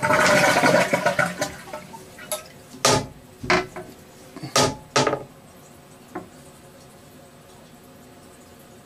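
Toilet flushing: rushing water that dies away about a second and a half in, followed by a handful of sharp clacks, four of them loud, between about three and five seconds in.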